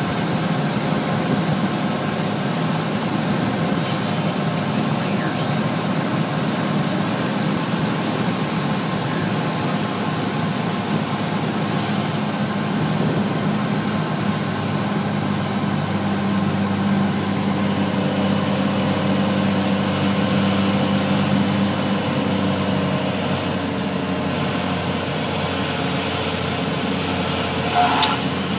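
Cessna 182's six-cylinder piston engine and propeller running steadily on landing approach, heard inside the cockpit with rushing air noise. A brief louder knock comes near the end as the plane reaches the runway.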